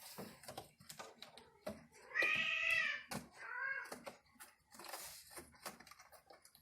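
A kitten meowing twice: one long meow about two seconds in and a shorter one just after, over scattered light clicks and knocks.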